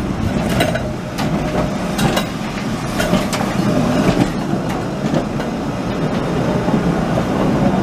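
Tatra T5C5 tram rolling past on the rails: a steady rumble with scattered sharp clicks of the wheels on the track.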